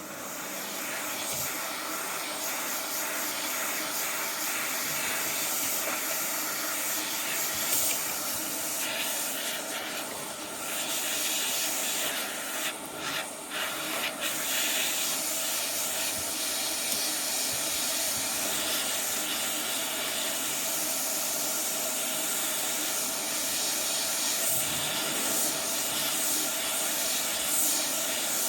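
ATTEN ST-862D hot air rework gun blowing a steady hiss of hot air through its medium nozzle, driven by its brushless fan, with a faint fan whine underneath.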